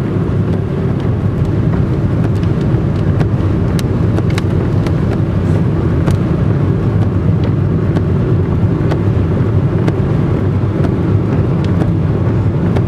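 Steady low rumble of a car's road and engine noise, with scattered faint clicks.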